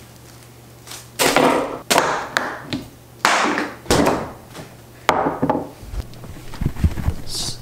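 Five sudden, loud crashing noises in quick succession, each dying away within about half a second, over a steady low hum. Near the end come low bumps and knocks as the camera and its pole are handled.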